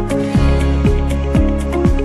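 Background music with a steady kick-drum beat about twice a second, over quick hi-hat ticks and held chords.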